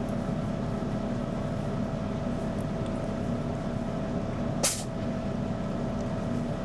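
Hair dryer running steadily with a constant humming whine as it blows on a cat's fur. A single sharp click about four and a half seconds in.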